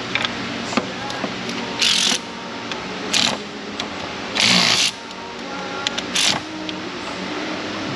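A ratchet driving a spark plug socket on a long extension in four short bursts of fast ratcheting, the longest about half a second, with a few light clicks between. A steady low hum runs under it. The socket is binding at too steep an angle.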